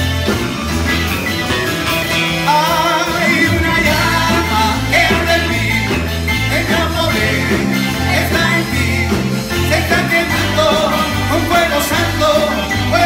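Live worship band playing: electric bass, keyboard and drum kit, with a woman singing lead in Spanish from about two and a half seconds in.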